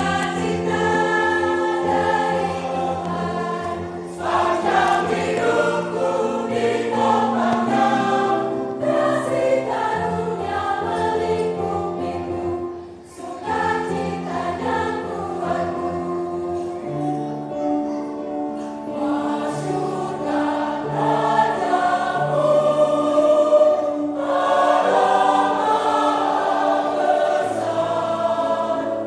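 Church choir singing a hymn, sustained notes moving from phrase to phrase, with a short break between phrases about halfway through.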